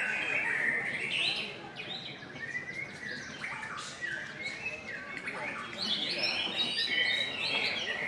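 White-rumped shama (murai batu) singing a rapid, varied song of whistled phrases, trills and chattering notes, with other contest birds singing around it. The song thins out briefly and comes back denser and louder about six seconds in.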